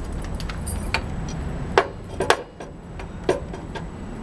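A few sharp metallic clicks and clinks, about four over the span, as small linkage parts of a Tecumseh small engine are handled and fitted back on, over a steady low hum.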